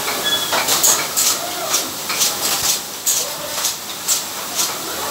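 Automatic capping line fitting trigger-spray heads onto bottles, running with short bursts of air hiss from its pneumatic heads about two or three times a second, over a constant hiss.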